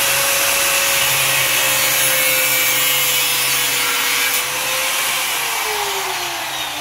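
Handheld angle grinder running and cutting into a small pink plastic fan part, with a loud gritty noise over the motor's steady whine. About five seconds in, the tool comes off the work and is switched off, and its pitch falls as the disc spins down.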